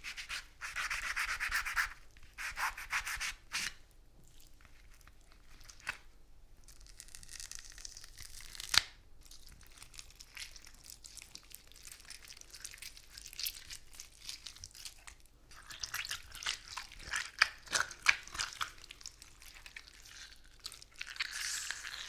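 A grapefruit being rubbed, scraped and torn close to the microphone for gore sound effects, in scratchy, crackling bursts. There is one sharper click about nine seconds in.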